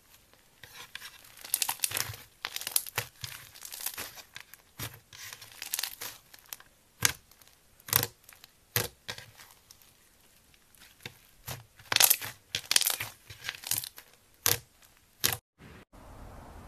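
Crunchy slime being squeezed and pressed, giving clusters of sharp crackles and pops with a few single loud snaps between them.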